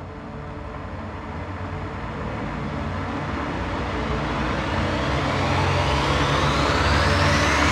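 Soundtrack riser effect: a low rumble under a swelling whoosh that climbs steadily in pitch and grows steadily louder, building toward a hit.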